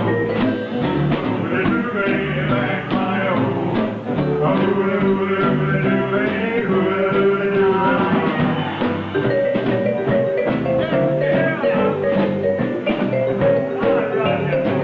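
Live band playing a song with guitar, bass and a steady beat.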